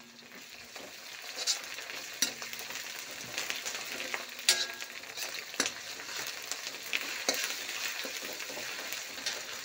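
Sliced onions with ginger and garlic paste frying in oil in an iron karahi, sizzling steadily, the sizzle building over the first second. A perforated metal slotted spoon stirs them, clinking and scraping against the iron every second or two.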